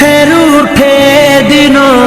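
Background music in a South Asian film-music style: a held melody line that bends and slides in pitch over a steady low drone.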